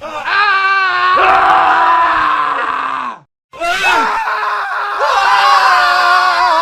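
Men screaming, one scream clip after another: a wavering scream, a brief cut to silence a little past three seconds in, then more screaming to the end.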